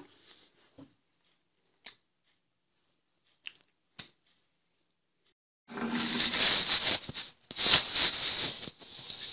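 A few faint sharp taps and claps of hands. Then, from about six seconds in, loud rustling and scraping of the camera being handled close up against its microphone, in two stretches with a short break between them.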